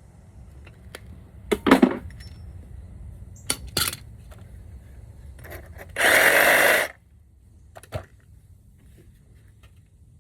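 Scrap metal pieces clinking and clanking as they are handled and dropped, with sharp knocks a couple of times and a loud rattling clatter lasting about a second around six seconds in.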